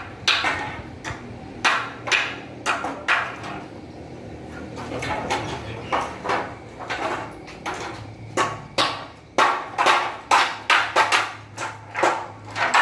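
A series of sharp knocks, like hammering, at an uneven pace: a few spread out at first, then coming about two to three a second in the second half. A faint steady low hum runs underneath.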